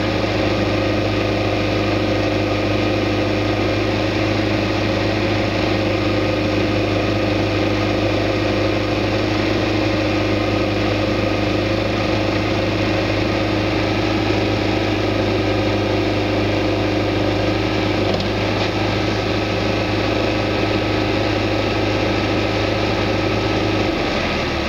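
Backhoe's diesel engine running steadily at a constant speed, its pitch dropping slightly near the end.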